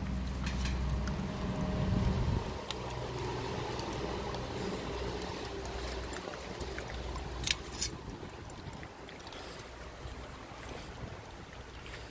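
Renascence Bulldogge puppies chewing and crunching on raw fish, with scattered small cracks of bites and two sharp cracks close together about seven and a half seconds in. A low rumble sounds underneath for the first two seconds or so, then fades.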